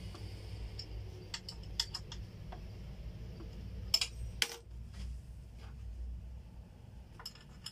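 Scattered sharp clicks and light knocks of a health scale's column parts being handled and fitted together by hand, with two louder knocks about four seconds in.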